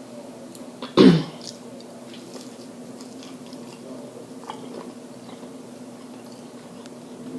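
One loud, short throat sound about a second in, falling in pitch, over faint small mouth clicks and a steady low hum.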